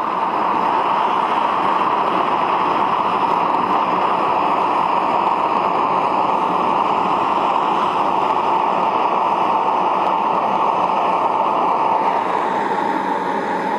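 Propane torch burner firing into a small paint-can forge, a steady hiss while a carriage bolt heats in the flame.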